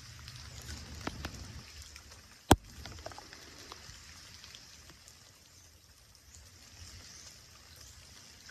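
Rain falling, with scattered drops ticking and one sharp click about two and a half seconds in.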